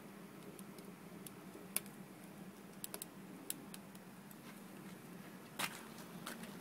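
Wood fire burning in a rocket stove built from a gas bottle: faint, scattered sharp crackles and pops, a little longer one near the end, over a low steady hum.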